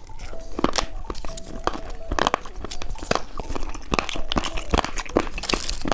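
Close-up biting and chewing of a cheese stick coated in sugar pearls: a quick, irregular run of small crunches.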